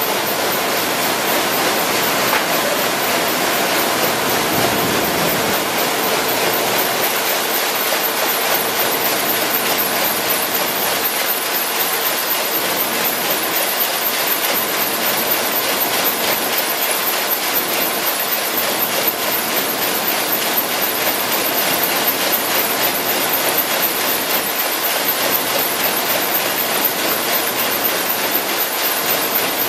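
RYOBI 758P eight-colour sheetfed offset press running at production speed, sheets being delivered onto the pile: a steady, loud mechanical clatter and hiss with a fast, even rhythm.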